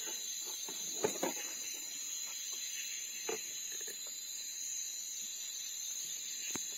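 Steady, shrill chorus of night insects, several high-pitched buzzes holding on without a break, with a few light knocks about a second in, just past three seconds and near the end.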